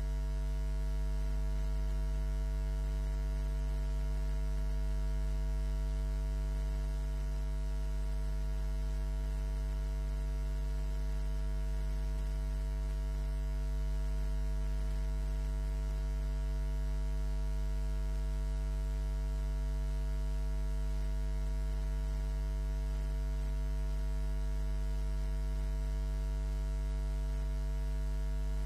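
Steady low electrical mains hum with a stack of overtones, unchanging throughout and with no other sound over it.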